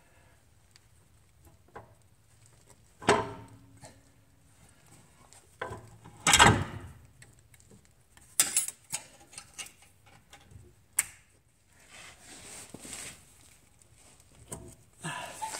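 Scattered metal clanks and knocks as a replacement CV axle shaft is worked and guided into place from under the car, with light rustling between; the loudest knock comes about six seconds in.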